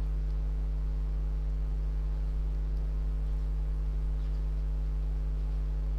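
Steady low electrical hum, a stack of unchanging tones typical of mains hum in the recording chain, with nothing else heard.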